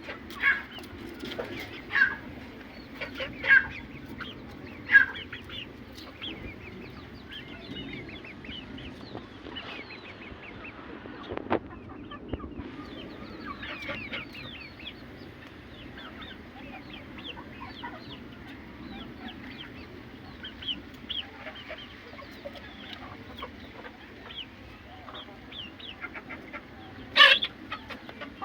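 Aseel chickens clucking: a constant chatter of short calls, with a few louder calls about every second and a half in the first few seconds and one loud call near the end. A single knock sounds about midway.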